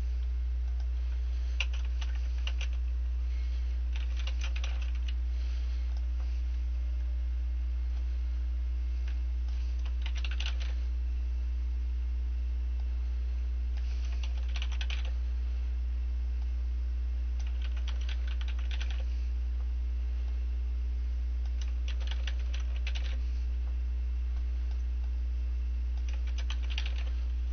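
Typing on a computer keyboard in about seven short runs of keystrokes a few seconds apart, over a steady low electrical hum.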